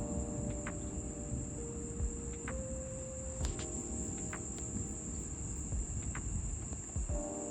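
Crickets chirring in a constant high trill over a steady low rumbling background. Held tones in several pitches come in during the first half and again near the end.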